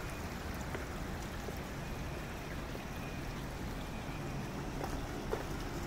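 Steady rushing of flowing water over a low city rumble, with a couple of faint ticks near the end.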